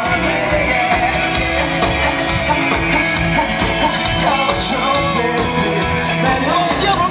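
Live rock band playing loudly: electric guitar, bass guitar and drum kit through a stage PA.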